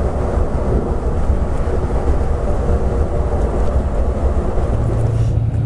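Volvo 9600s multi-axle bus cruising on the highway, heard from inside: a steady low rumble of engine and road noise. About five seconds in, it gives way to a steady low hum.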